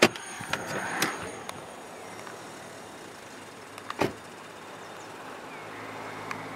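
Inside a car halted in traffic: steady engine and road noise with a low hum, broken by a few sharp clicks and knocks near the start and one more about four seconds in.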